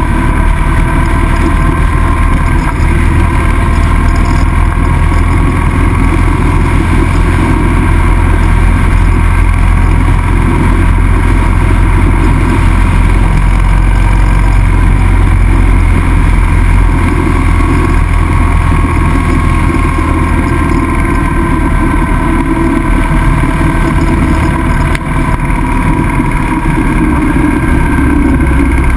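Motorcycle engine running steadily at road speed, heard from a camera mounted on the moving bike, with heavy wind and road noise.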